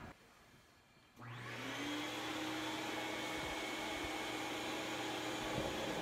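Propane torch burning into a small homemade forge: a steady rushing hiss with a low hum that starts about a second in and holds even.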